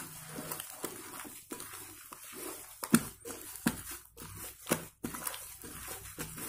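Soft slime being squeezed and kneaded by hand in a glass bowl, giving irregular wet squelches and sharp sticky pops, the loudest about three, three and a half and four and a half seconds in.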